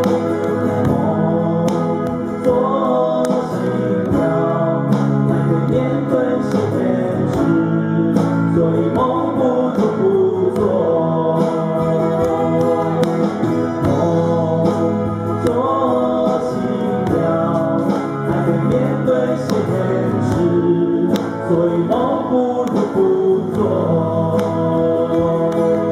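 Two men singing a song together over two amplified silent guitars, one nylon-strung and one steel-strung, in a steady live acoustic duet.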